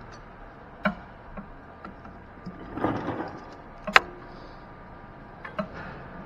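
A few light clicks and knocks and one sharp metallic clank about four seconds in, with a brief ringing after it, as a bicycle is moved, over the steady hum of an underground parking garage. A short rustling noise comes just before the clank.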